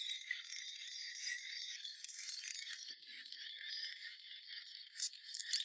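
Continuous thin, tinny rattling and clinking of metal tools and engine parts during an engine teardown, with a few sharper clicks near the end.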